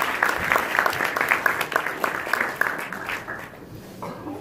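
Audience applauding, the clapping thinning out and fading away about three seconds in.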